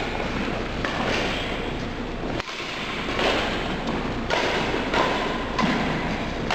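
Badminton rally: rackets striking the shuttlecock every second or so and players' footsteps on the wooden court, echoing in a gym hall.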